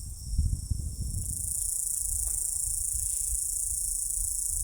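Steady high-pitched chorus of insects, growing louder about a second in and then holding even. Low rumble of wind or handling on the microphone in the first second.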